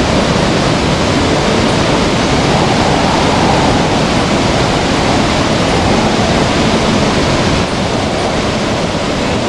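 Gale-force wind buffeting the microphone with a heavy, fluttering rumble, over the steady rush of a waterfall.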